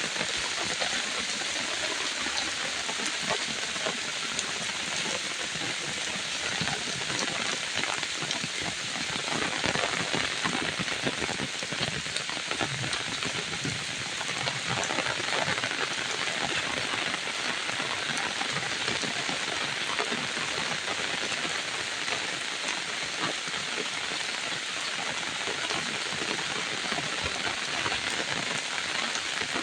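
Steady rain falling, a dense patter of many small drop ticks over a continuous hiss.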